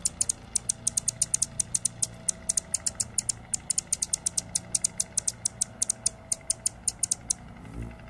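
A perched hummingbird giving a rapid, irregular string of sharp, high, dry chip notes, about seven or eight a second, which stop shortly before the end.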